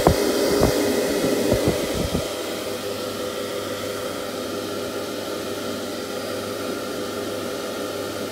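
Two 3-inch inline 12V bilge blower fans running steadily, a whooshing rush of air with a constant hum. A few sharp knocks and bumps in the first two seconds.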